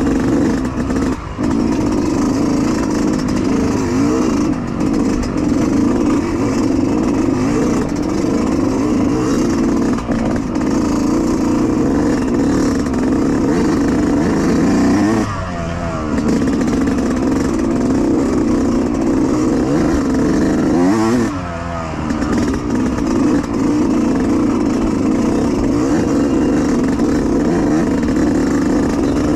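Yamaha YZ125X 125 cc two-stroke single-cylinder dirt bike engine running hard under throttle while riding. Its note dips and climbs back twice, about halfway and about two-thirds of the way through, as the throttle is eased and opened again.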